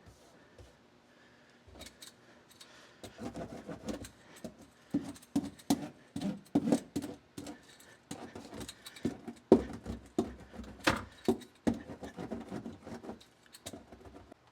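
Foil-backed butyl sound-deadening mat (Kilmat) being handled and pressed into place against the car's trunk panel: irregular crinkling, rustling and tapping, with a few sharper knocks partway through.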